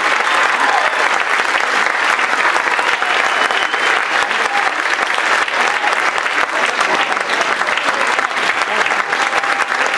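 Audience applauding steadily, a dense patter of many hands clapping, with some voices from the crowd mixed in.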